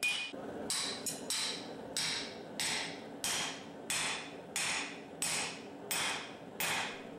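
Hand hammer striking the steel rivets of a riveted mild-steel bar lying on an anvil: a steady series of sharp metal blows, about one every two-thirds of a second.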